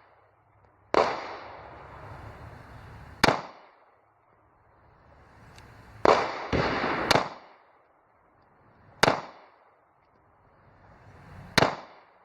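9mm Ruger LC9S pistol being fired: about seven sharp shots spaced a second or two apart, three in quick succession near the middle, each with a short ringing tail.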